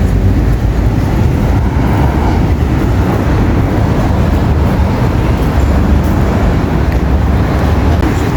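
Loud, steady low rumble of a moving vehicle, with no distinct events.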